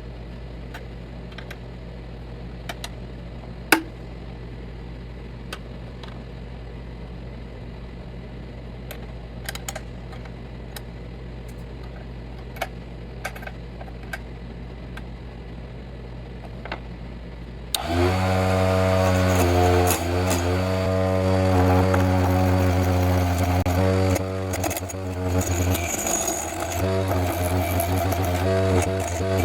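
Vevor HS001 mini wood lathe running with a steady low hum and occasional light ticks. About eighteen seconds in it suddenly turns much louder, with a wavering whine and scraping noise.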